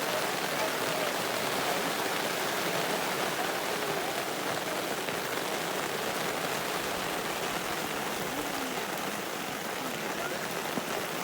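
Steady rain falling, an even hiss, with faint voices under it.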